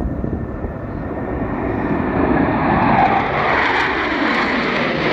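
Jet roar of a formation of Blue Angels F/A-18 Super Hornets approaching overhead, growing louder through the first few seconds as the jets close in.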